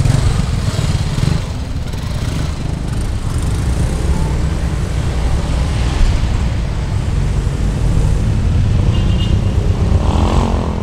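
Mercedes-Benz SLS AMG's V8 engine running as the car drives slowly past, a steady low rumble with a rising rev near the end.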